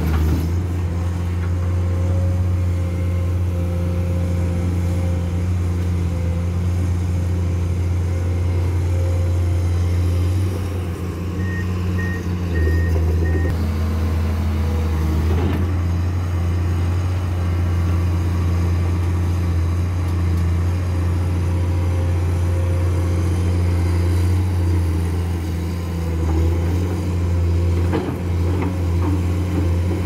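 Komatsu PC210 hydraulic excavator's diesel engine running steadily under load while digging, its note dipping and rising as the work changes. Four short, evenly spaced high beeps sound a little before halfway.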